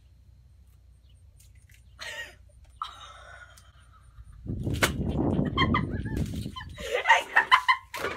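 An egg cracked on a person's head: one sharp crack about five seconds in, then squealing and laughter.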